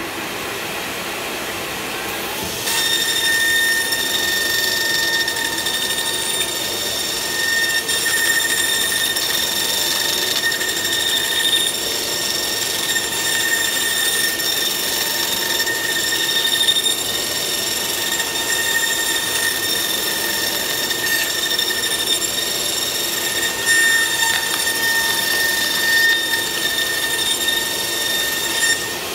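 The milling spindle of a Kongsberg cutting table whines at a steady high pitch as it cuts a groove into a thick plastic core board. The whine steps up about three seconds in when the cut gets going and drops away at the very end.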